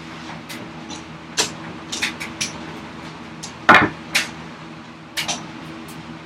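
Scattered sharp wooden knocks and taps as a wooden vise chop is worked against the vise's guide rails while it is test-fitted, not yet going on. The loudest knock comes a little before the four-second mark.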